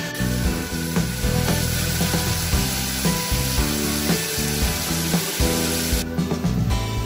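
Goat kidneys and testicles with tomatoes sizzling as they fry in oil in a pan, over background music. The sizzle cuts off about six seconds in, leaving the music.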